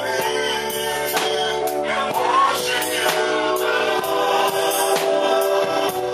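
Gospel worship music with group singing over instruments and a steady beat.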